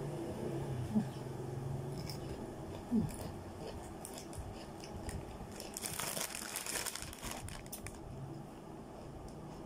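Plastic packet of dried rice noodles crinkling as it is handled, loudest in a burst of crackling for about two seconds after the middle.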